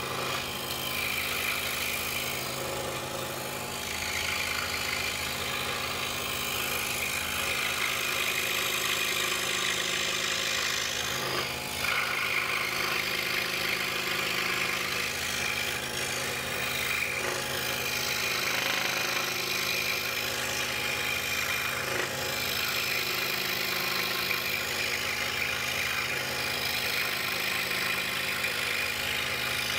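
DeWalt scroll saw running, its reciprocating blade cutting through a wooden puzzle blank: a steady motor and blade hum with the noise of the cut rising and easing as the piece is turned.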